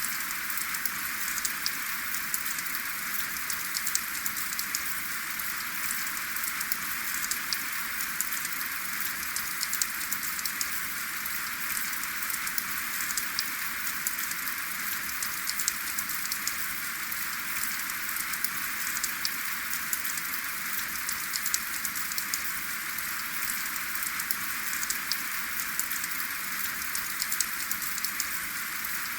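Steady rain falling without thunder, a constant hiss dotted with many sharp little drop ticks.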